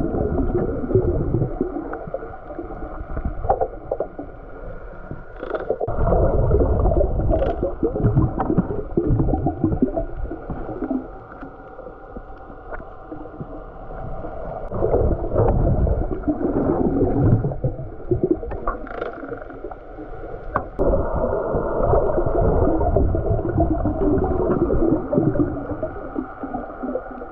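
Muffled underwater rumble and water noise picked up by a camera in a waterproof housing, swelling and fading in surges every few seconds, with a few light clicks.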